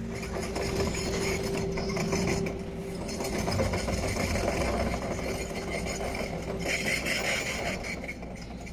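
Construction-site machinery running: a steady hum with rapid rattling and clattering, the hum stopping about two seconds before the end.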